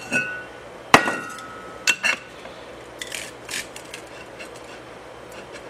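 Metal clanks from brake drums and a brake drum micrometer being handled: a small ringing clink at the start, one sharp ringing clank about a second in, two lighter clinks around two seconds in, then faint handling ticks.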